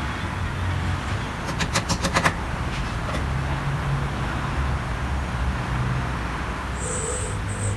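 Steady low rumble of a motor vehicle, with a quick run of sharp clicks or taps about two seconds in.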